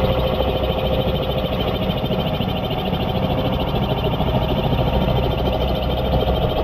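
RC scale model Bell 212 helicopter flying low, slowed to 30% playback speed. The slowed main rotor gives a steady, rapid rotor beat like a full-size helicopter's, over a steady motor tone.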